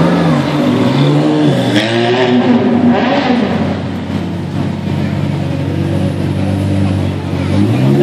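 Supercar engines at low speed, Ferrari F430s among them, blipping the throttle with revs rising and falling in the first few seconds. They then settle into a steady deep idle, and a rev climbs again near the end.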